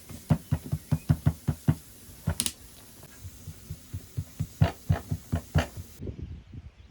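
Two runs of short, dull knocks, about five or six a second, with one sharper, brighter crack about two and a half seconds in.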